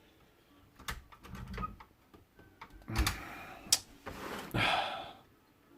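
A heavy 1940s Remington manual typewriter being shifted about by hand: scattered knocks and clicks from the machine, with a couple of brief scuffing sounds.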